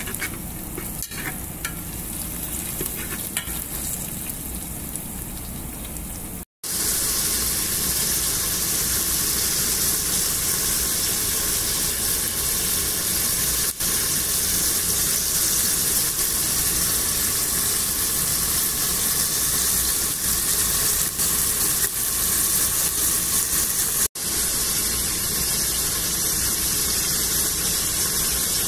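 Chicken pieces sizzling in hot oil in an aluminium pot, a loud, even hiss that starts abruptly about six seconds in. Before that, quieter frying of chopped onion, with a few light clicks of a metal utensil stirring against the pot.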